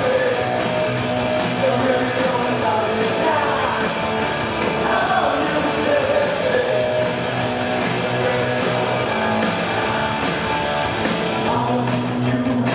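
Punk rock band playing live, with electric guitars and a steady drum beat under a sung lead vocal.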